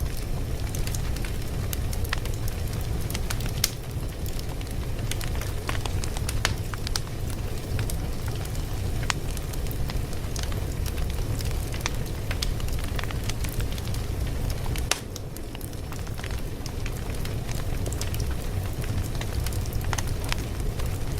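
Fire crackling: irregular sharp pops and snaps over a steady low rumble, with a brief drop in level about fifteen seconds in.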